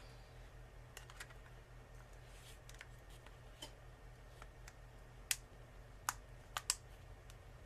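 Scattered sharp little clicks and taps of hard plastic parts as a Samsung Galaxy S3 is handled with its back cover and battery taken out, a couple about a second in and a quick cluster near the end.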